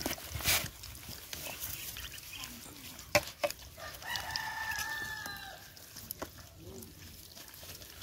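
Puppies eating from a plastic bowl, with scattered small clicks and a sharp knock about three seconds in. A rooster crows about four seconds in, one call lasting about a second and a half that drops in pitch at the end.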